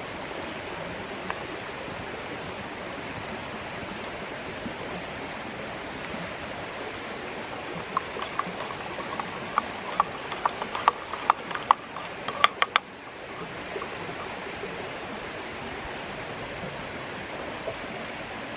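Creek water flowing steadily. About halfway through, a metal spoon stirring Greek coffee clinks against the brass briki, roughly a dozen sharp ringing clicks over four or five seconds, and these are the loudest sounds.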